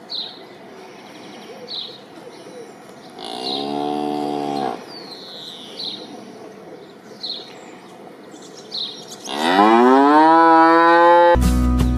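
Cow mooing twice: a short moo about three seconds in, then a longer, louder moo from about nine seconds in that rises in pitch and then holds. A sudden loud sound cuts in just before the end.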